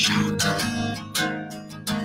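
Acoustic guitar strummed in hard chord strokes. A heavy strum comes at the start, others come about a second in and near the end, and each chord rings out and fades between strokes.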